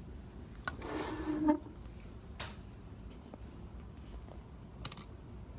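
Dry-erase marker writing on a whiteboard: a tap, then a scratchy squeak about a second in, and a few short strokes later on.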